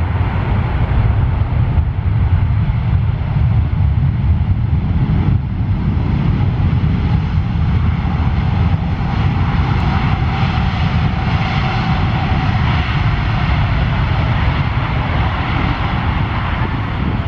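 Emirates Airbus A380's four jet engines, a loud, steady rumble with a faint whine coming in midway, as the airliner goes by close to the runway fence.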